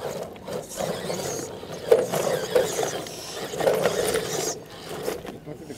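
Electric motor and gear drivetrain of a radio-controlled rock crawler whirring in uneven bursts as it is driven over rocks, loudest about two seconds in and again around four seconds in.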